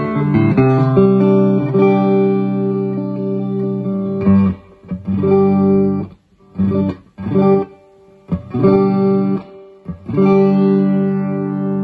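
Electric guitar played clean through a Marshall G80RCD transistor combo amp: ringing chords at first, then short chopped chords with brief silences between them from about four seconds in, then ringing chords again near the end.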